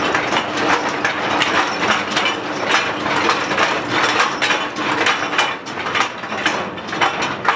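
Longwall shearer working at an underground coal face: a continuous clatter of irregular knocks and rattles over a steady machine hum.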